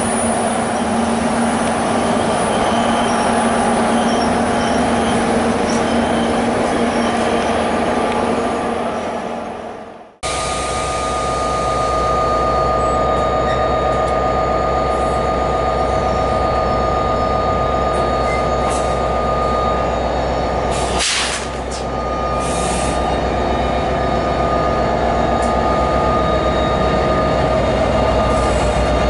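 NJ Transit diesel push-pull commuter train, led by a PL42AC locomotive, rolling close past a station platform: a steady loud rumble of wheels and engine. The sound cuts out for an instant about ten seconds in. After that, a thin steady high squeal runs over the rumble until near the end.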